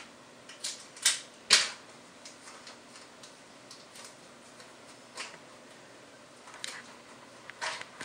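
Handling noise from fingers turning a silver ring: scattered short clicks and scrapes, the loudest about a second and a half in.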